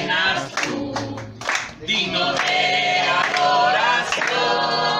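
A congregation singing a Spanish worship song together, with some hand clapping.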